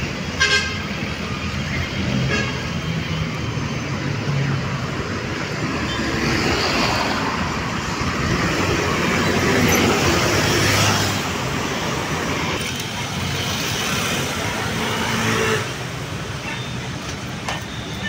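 Busy street traffic, with scooters, motorcycles and cars passing close by. A brief horn toot sounds about half a second in, and the passing-vehicle noise swells between about 6 and 11 seconds.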